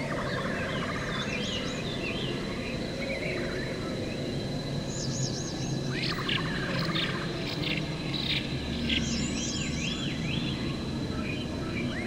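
Forest ambience of several birds singing and chirping, with warbling phrases and a quick run of repeated notes about halfway through. Under them runs a steady low rushing background and a thin steady high tone.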